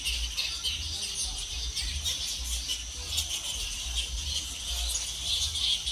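A roosting colony of fruit bats squeaking and chattering without pause, many short high calls overlapping, over a steady high hiss, with wind rumbling on the microphone.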